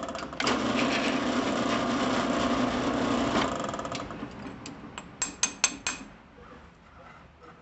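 A drill press running and drilling into a small metal part clamped in a drill-press vise for about three and a half seconds, then dying away. Several sharp metal clinks follow as the vise is worked and the part is handled.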